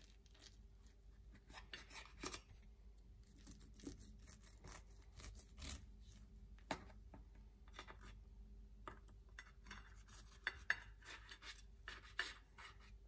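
Serrated knife sawing through a baked semolina (rava) cake: faint rasping strokes with scattered light clicks of the blade in the crust.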